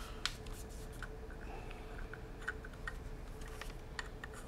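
Faint scattered clicks and taps of hard plastic being handled as a cylindrical flash head is turned over in the hands, over a faint steady hum.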